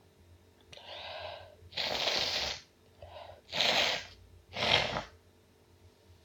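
A person sneezing three times in quick succession, the first sneeze after a drawn-in breath.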